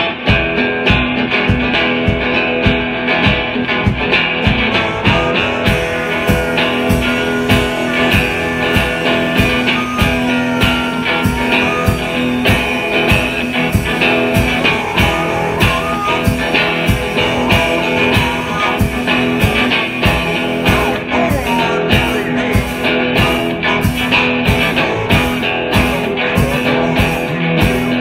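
Live blues-rock band: a drum kit keeps a steady pounding beat under an amplified, wailing harmonica played into the vocal mic, with guitar-like amplified tones. Cymbal hits come in more strongly in the last third.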